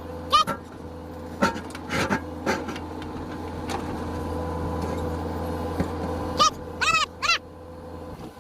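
JCB backhoe loader's diesel engine running steadily, building a little in the middle as the backhoe bucket works, with a few sharp knocks. Several short high calls sound over it near the start and again toward the end.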